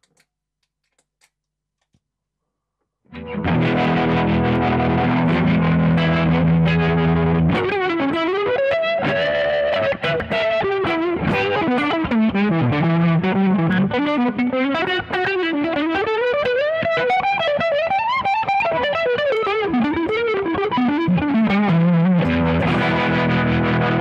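A Fender Telecaster electric guitar played through an overdrive and a Leslie rotary-speaker effect pedal, starting after about three seconds of near silence: a held chord, then a long single-note lead line, ending on chords again near the end.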